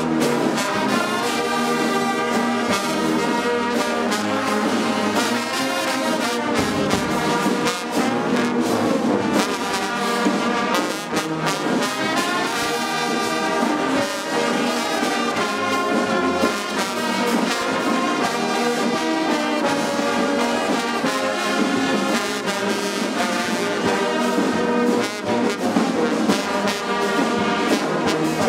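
A large brass band playing together, tubas and other brass instruments sounding a continuous tune of sustained, changing notes.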